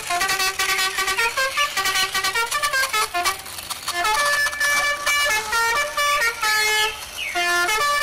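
Background music: a quick, bright melody of short stepped notes that keeps going without a break.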